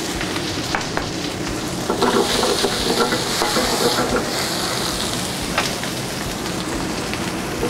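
Sliced yellow onion sizzling in smoking-hot olive oil in a skillet over a gas burner, a steady frying hiss as the onions are worked in the pan, with a few light clicks.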